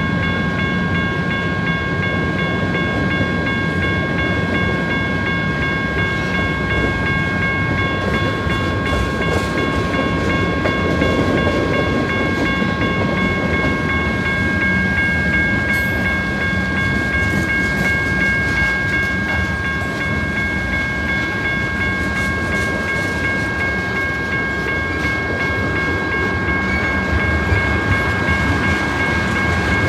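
Freight train of covered hopper cars and tank cars rolling past a grade crossing: a steady rumble of wheels on rail, with several steady high-pitched tones over it. One of the tones stops about halfway through.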